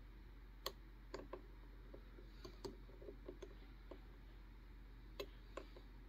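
Faint, irregular clicks and ticks of a disc detainer pick turning the discs inside an Anchor Lås disc detainer lock core. The clicks are scattered, with the clearest under a second in and about five seconds in.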